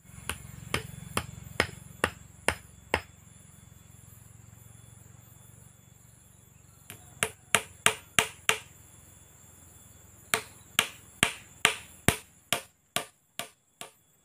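Hammer blows on a wooden post: three runs of quick, sharp strikes, the last the longest. A steady high insect trill runs behind them.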